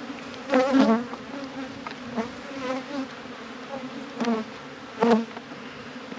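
A swarm of honey bees buzzing steadily around an opened hive, with several brief louder swells of buzzing.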